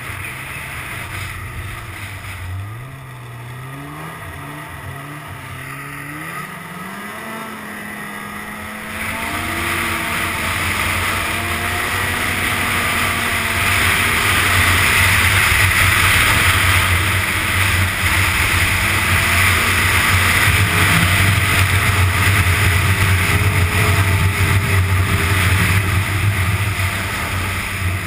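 2005 Ski-Doo GSX 600 snowmobile's two-stroke engine heard from the rider's seat, its pitch climbing over the first several seconds as the sled accelerates. From about nine seconds in it runs louder and steadier at speed, with the rush of track and wind.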